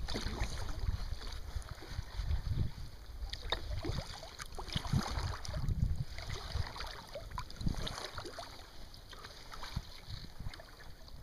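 Wind buffeting the microphone as a low rumble, with water lapping and splashing irregularly against a kayak's hull on choppy water.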